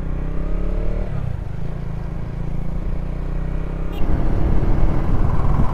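Single-cylinder KTM Duke motorcycle engine running under way, heard from the rider's seat. There is a sharp click about four seconds in, and then the engine gets louder and rougher, with more rushing noise.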